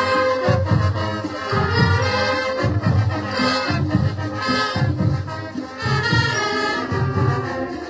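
Festival band playing, brass instruments over a steady low drum beat of about two beats a second.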